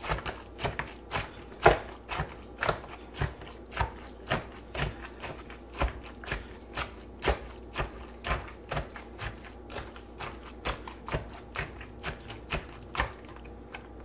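Hand food chopper striking down through moist cornbread dressing against the bottom of a plastic mixing bowl, in steady, even chops about two a second.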